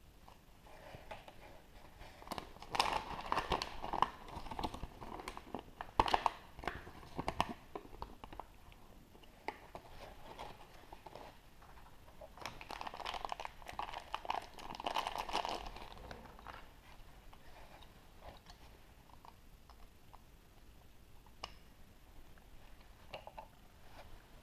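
A chocolate surprise egg being unwrapped and opened by hand: foil crinkling and crackling in several bouts, with sharp clicks and snaps between.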